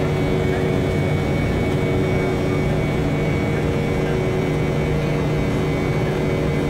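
Jet airliner cabin noise in the climb after takeoff: the engines and rushing airflow make a steady, unchanging roar with a low hum and a faint high whine.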